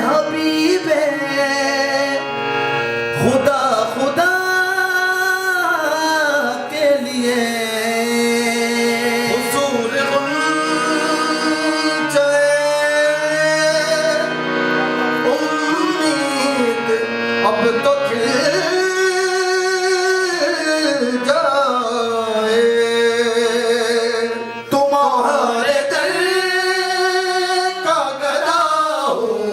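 Qawwali performance: a male voice sings long, sliding melismatic phrases that rise and fall over steady held tones from harmonium, with light percussion underneath.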